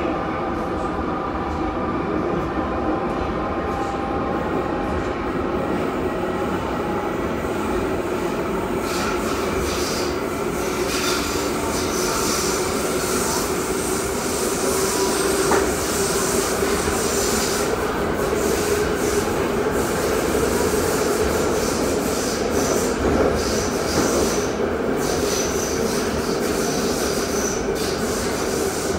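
Metrovagonmash 81-717 metro car running at speed, heard from inside the car: a steady rumble of wheels on rail under a constant hum. From about nine seconds in, a patchy high-pitched wheel squeal joins it.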